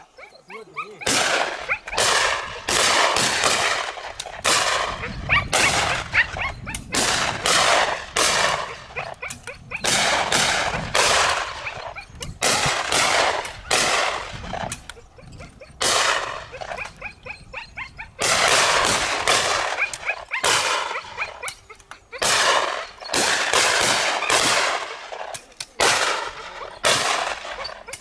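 A line of shotguns firing at driven clays, dozens of shots in quick irregular succession, several a second at times, each with a short ringing tail, and brief lulls between flurries.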